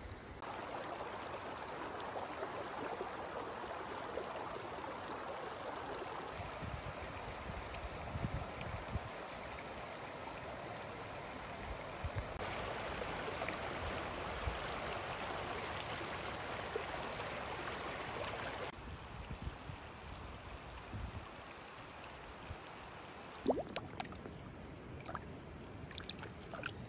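Small mountain stream running over rocks: a steady babble and rush of water, a little quieter in the last third. A few sharp clicks come near the end.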